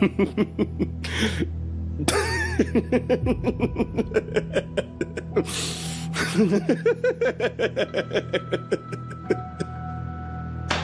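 A man laughing hard and at length, in rapid pulses of about five a second broken by three gasping in-breaths, trailing off near the end. Soft background music underneath.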